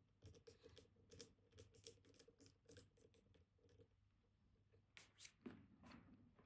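Faint, rapid metallic ticking and scraping of a dimple pick working the spring-loaded pins inside a Kaba Titan Combi dimple lock under tension. A run of light ticks is followed, about five seconds in, by two sharper clicks and a short scrape.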